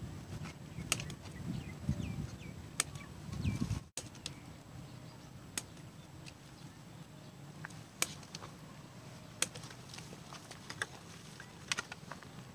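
Scissors snipping the tails off plastic cable ties, one sharp click at a time, irregularly every second or two.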